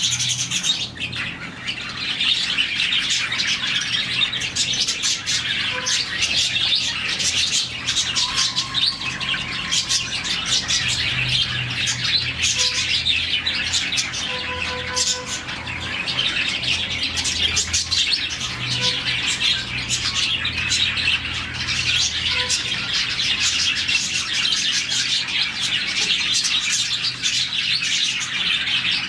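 A colony of about forty budgerigars chirping and chattering all at once, a dense, unbroken twittering of many overlapping birds.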